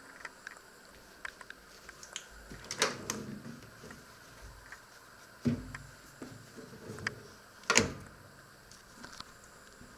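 Kitchen oven door being opened and shut, with three loud clunks about 3, 5½ and 8 seconds in, the last the sharpest, and small clicks of handling between them.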